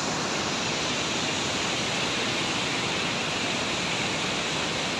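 Fast mountain river rushing over boulders: a steady, even rush of white water.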